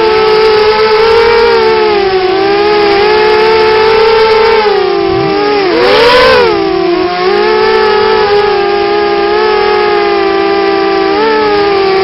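CGX 250 racing quadcopter's brushless motors and propellers whining, several close tones that waver up and down with throttle. About five seconds in, the pitch drops and then surges sharply, with a brief burst of rushing noise at the peak.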